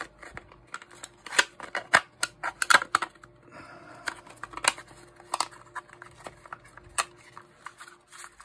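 3D-printed plastic shell being pressed and worked onto a printed robot-hand palm: a run of sharp plastic clicks and knocks, loudest in the first three seconds, with a short scrape about three and a half seconds in. The shell is a tight fit that has to be forced over the palm.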